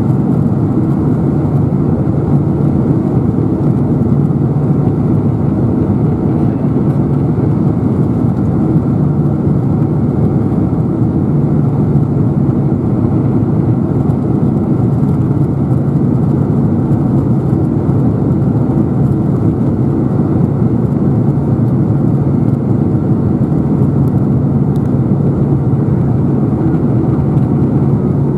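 Steady cabin noise of a Boeing 747-400 on approach, heard from a window seat over the wing: the drone of its turbofan engines and rushing air, with a low steady hum under it.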